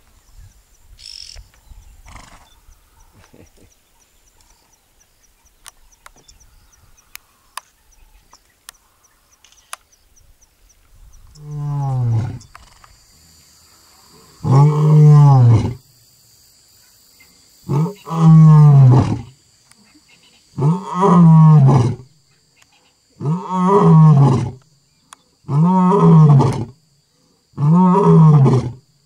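A lion roaring: after faint insect ticking, a bout of long, deep roars starts about twelve seconds in. They build from a quieter first roar to seven full roars, roughly one every two and a half to three seconds, the later ones each opening with a short grunt.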